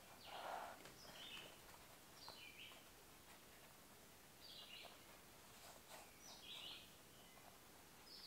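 Faint birdsong: scattered short bird chirps, a few each second or two, over a quiet background.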